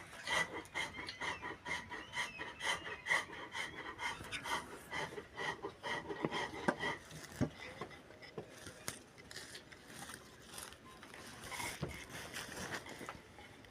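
A hand tool working green wood in quick, even back-and-forth strokes, about three a second, growing sparser and quieter about halfway through.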